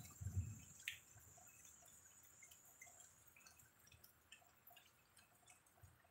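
Faint rain: scattered drops dripping and ticking on the wet street and doorstep. A brief low rumble at the start and one sharper click about a second in.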